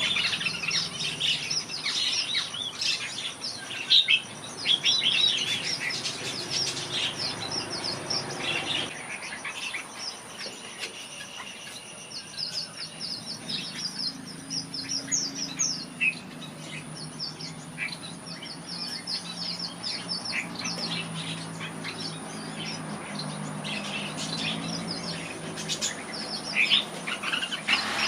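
Red-whiskered bulbuls chirping and singing, a rapid run of many short notes, busiest in the first several seconds and again near the end.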